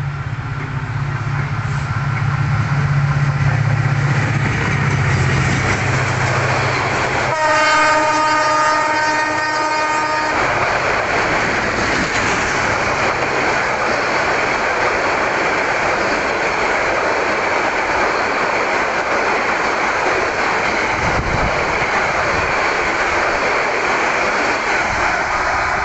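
Hyundai Rotem-built diesel-electric locomotive approaching and passing with a low engine drone, then sounding its horn in one blast of about three seconds. A long rake of passenger coaches follows, rolling past with the wheels clattering over the rail joints.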